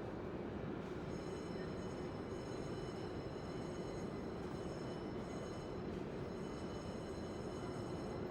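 Train station ambience: a steady rumble of a train at the platform, with a high, thin whine of several steady tones coming in about a second in.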